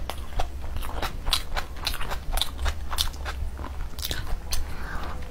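Close-miked mukbang eating sounds: chewing naan soaked in curry, with many wet mouth clicks and smacks at an irregular few a second.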